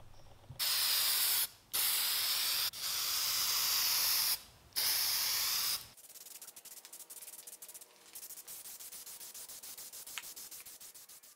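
Aerosol spray can of clear lacquer hissing in four bursts of about a second each, with short breaks between them. After that comes a much fainter, steadier spraying.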